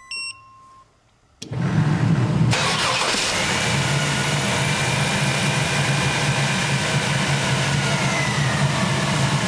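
A short electronic beep, then the 1997 Chevy S10 Blazer's 4.3-litre V6 starts about a second and a half in and settles into a steady idle.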